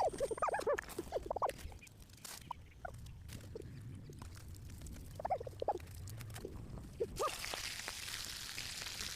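A chicken clucking: short, arching calls come scattered and irregular, with a steady hiss joining about seven seconds in.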